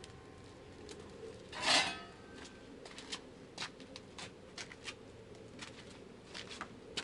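Quiet handling noises: scattered light clicks and taps, with one brief scrape just under two seconds in.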